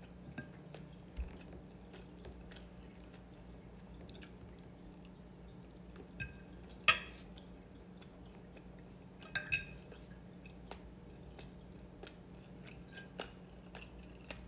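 A fork clinking and scraping against a plate during a meal, with quiet chewing. There are scattered sharp clinks, the loudest about seven seconds in and two more a couple of seconds later, over a low steady hum.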